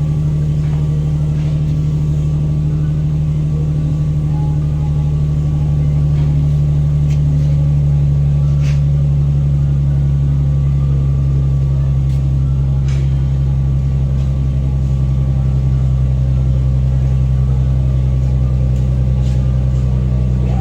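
Infiniti's VQ35HR V6 idling steadily through a freshly installed Manzo stainless catback exhaust.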